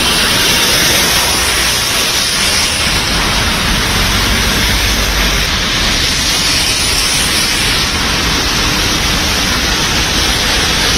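Steady rushing water noise from heavy rain and flood water running over a waterlogged road as cars wade through it.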